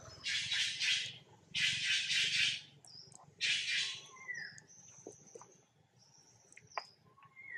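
Wild animal calls: three harsh, hissy bursts about a second apart, each under a second long, followed by thin high whistles and a few short falling chirps.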